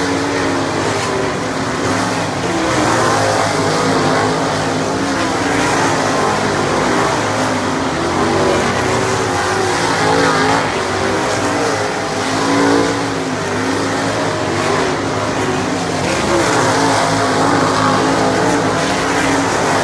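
Several winged sprint cars' 410 cubic-inch V8 engines running hot laps together, revving up and easing off over and over as the cars go through the turns and pass one another.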